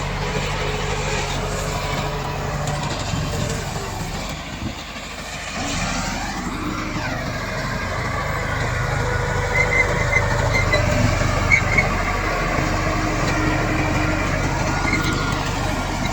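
Komatsu D68 crawler bulldozer's diesel engine running under load, its note dipping and then rising again about five to seven seconds in. A few short high squeaks come through around ten to twelve seconds.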